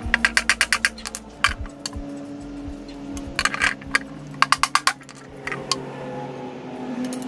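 Claw hammer tapping the end of a flat screwdriver to drive the old crankshaft seal out of the engine's front cover: a fast run of about eight taps in the first second, a few single taps after, and two more short runs around the middle.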